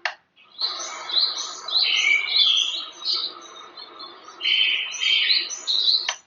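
Recorded birdsong, many quick chirps and tweets, played as a selectable wake-up sound from the Auroula Smart X1 alarm clock. It starts about half a second in and cuts off abruptly near the end, as the next alarm sound is selected.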